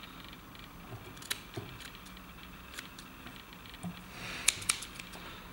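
Scissors snipping synthetic streamer fibers to free the hook bend, heard as a few faint, sharp clicks and rustles, the two loudest close together about four and a half seconds in.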